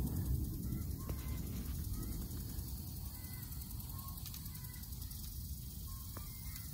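Thunder rumbling and slowly dying away, with a few short bird calls over it.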